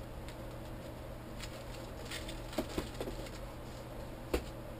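Rustling of plastic sheet protectors and paper as a stencil binder is handled and cleared off a craft table, with a few soft clicks and one sharper knock near the end. A steady low hum from a room air conditioner runs underneath.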